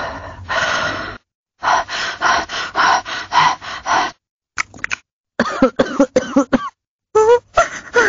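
Vocal sound effects from the Loquendo TTS synthetic female voice 'Selin', played one after another: a cough, then a run of about eight rapid coughs, a few short clicks, and short pitched vocal sounds with a changing pitch near the end.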